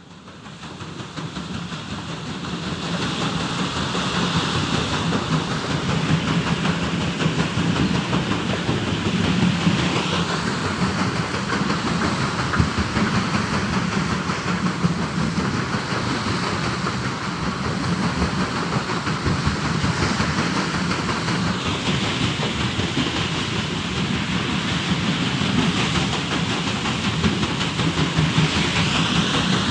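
Steady rush of flowing water, fading in over the first few seconds. Its brightness shifts a little about a third and two-thirds of the way through.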